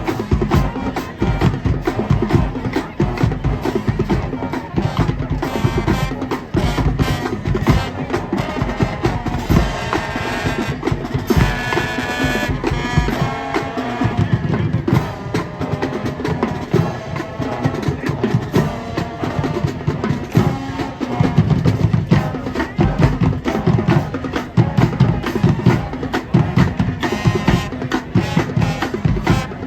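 High school marching band playing its field show, led by the drumline's fast, dense drum strokes. Sustained brass chords come up over the drums about ten seconds in and fade a few seconds later.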